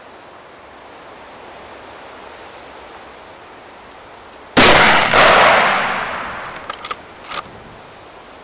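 A single scoped hunting rifle shot, about four and a half seconds in, with a long echoing tail that fades over a second or two. A few sharp clicks follow near the end.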